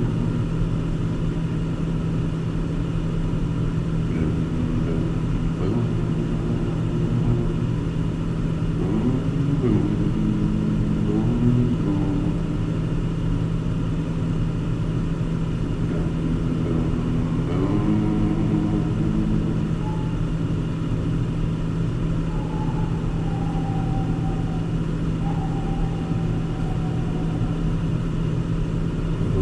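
Car driving, with a steady engine and road-noise drone.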